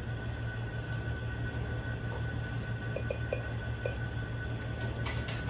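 Steady low room hum with a thin high tone, and a few light taps on a laptop keyboard about three to four seconds in, followed by a sharper click near the end.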